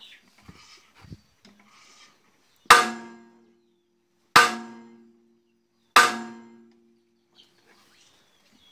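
Three hammer blows on the steel sprocket of a Caterpillar D7 crawler tractor, about a second and a half apart, each a loud clang that rings on and fades over about a second. The blows are meant to jar the stuck sprocket loose while a hydraulic ram presses against its hub.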